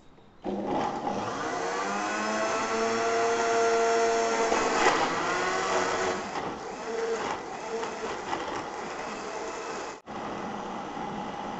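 Electric blender running on a thick load of onion, tomato, ginger and garlic with no water, grinding it to a paste. It starts about half a second in and the motor's pitch climbs and then sags as the mix churns. It cuts out for a moment near the end and runs again.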